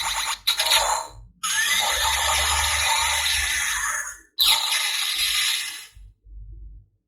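Electronic transformation sound effects from a Kamen Rider W toy belt (Double Driver), played from its built-in speaker: two short bursts, then a long noisy effect of about three seconds and another of about a second and a half, after which it stops.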